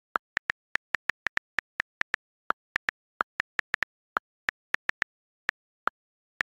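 iPhone on-screen keyboard clicks as a message is typed: about thirty short ticks at an uneven typing pace, a few of them a little lower in pitch, the click iOS gives for the space bar and the keyboard-switch key. Between the clicks it is completely silent.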